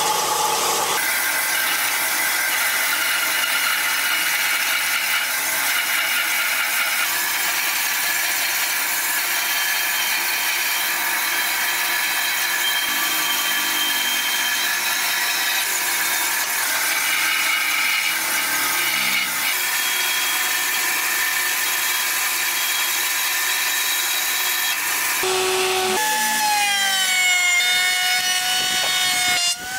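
Band saw running and cutting through a wooden board, a steady saw noise with a fixed motor whine. Near the end a smaller power tool takes over, its motor whine rising and falling as a wooden strip is fed past it.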